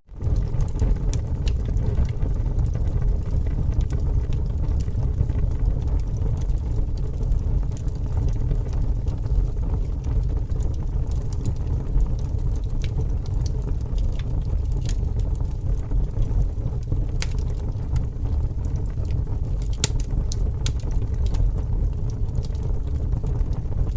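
Bonfire burning: scattered sharp crackles and pops from the burning wood over a steady low rumble.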